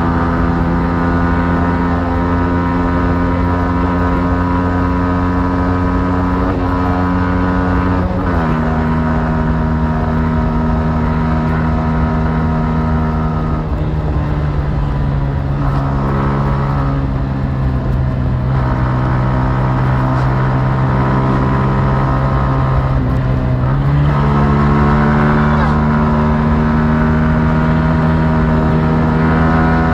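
Yamaha MT-15's single-cylinder engine through its stock exhaust, running steadily under way at fairly constant revs. The engine note steps down about a quarter of the way in and again near the middle, then climbs again later on.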